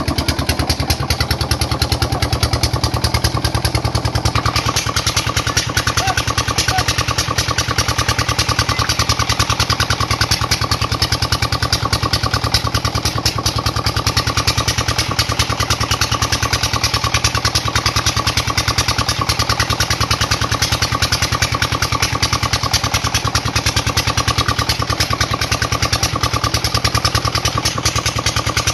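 Engine-driven farm water pump running steadily, with a fast, even engine beat.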